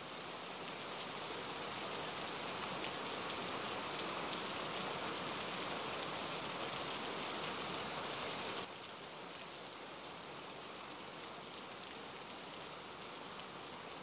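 Steady rain falling, an even hiss with a few faint ticks. About two-thirds of the way through it drops to a quieter, thinner rain.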